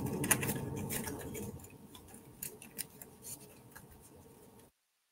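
Thin cardstock crackling and rustling as die-cut leaf sprigs are pressed out of their sheet by hand, with scattered sharp clicks that grow sparser and fainter after about a second and a half. Near the end the sound cuts off abruptly into dead silence.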